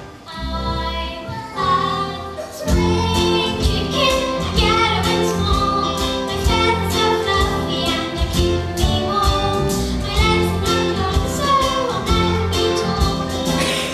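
Children singing a stage song together over an instrumental accompaniment. The backing is lighter at first, and a fuller arrangement with a steady beat comes in about two and a half seconds in.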